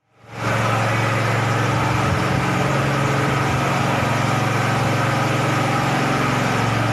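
An engine idling steadily at an even pitch, fading in at the start.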